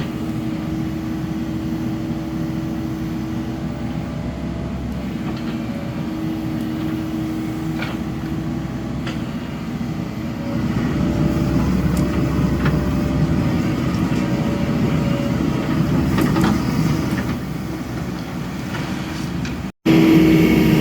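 Excavator's diesel engine running steadily with a held whine, working harder for several seconds in the middle, then easing off.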